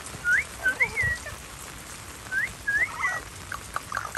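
Wet Amazon parrot giving short, whiny whistled calls, each rising then falling, in two groups of about three notes a second or so apart. This is the crying of a parrot upset at being soaked by rain; a few faint clicks come near the end.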